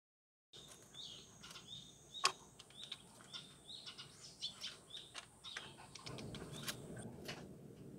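Small birds chirping over and over, with sharp taps and clicks of a Eurasian jay's beak on nuts and the window sill. The loudest tap comes a little over two seconds in.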